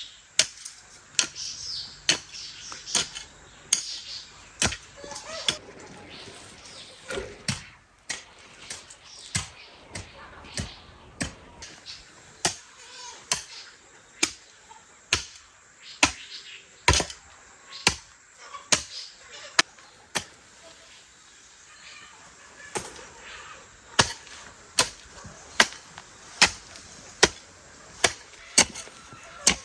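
A series of sharp, chopping-like strikes, roughly one a second, coming faster in the last few seconds.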